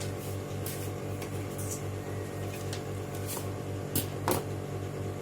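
Background music with a steady, evenly pulsing low beat, and two sharp clicks close together a little after the middle.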